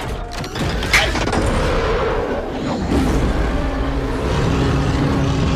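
Dense action-film soundtrack: low rumbling effects under music, with a sharp hit about a second in.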